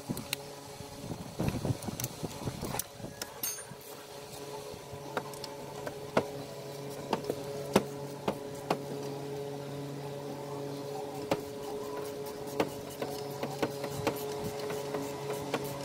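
Irregular metallic clicks and clinks of hand tools tightening the drive belt. About four seconds in, a steady hum joins them.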